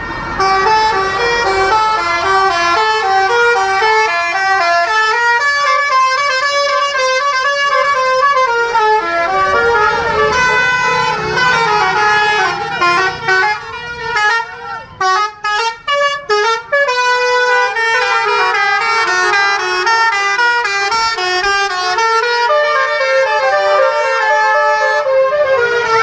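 Basuri telolet multi-tone horns on tourist buses playing melodic tunes, the notes stepping up and down. About halfway through there is a run of short, chopped blasts.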